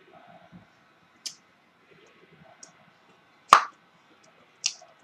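Three short, sharp clicks or taps: one about a second in, the loudest about three and a half seconds in, and another near the end, over faint room noise.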